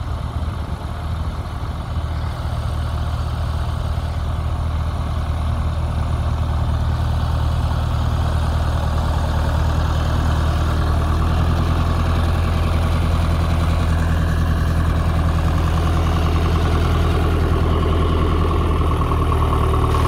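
Ferguson FE35 tractor engine running steadily while pulling a mounted plough through the soil. It grows louder over the first half, then holds steady.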